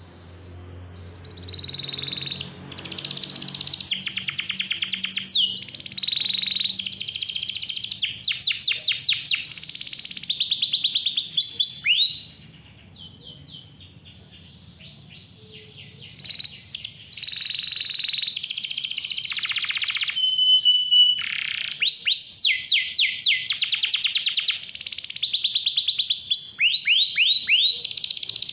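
Domestic canary singing: long runs of rapid trills and rolls mixed with short whistled notes. It starts about two seconds in and breaks off for a few seconds midway before carrying on.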